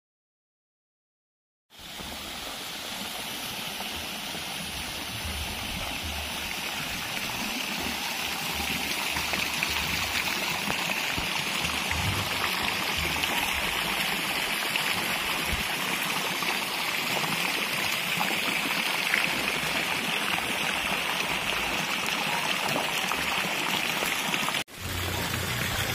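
Water splashing steadily into a swimming pool from an artificial rock waterfall, an even rushing that starts about two seconds in and is briefly cut off near the end.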